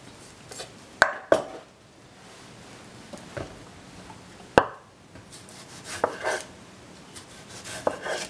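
Chef's knife slicing a tomato on a wooden cutting board: scattered sharp knocks as the blade comes down on the board, the loudest about halfway through.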